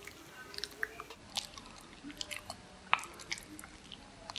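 A person chewing a mouthful of pumpkin pie close to the microphone: faint, irregular wet mouth clicks and smacks.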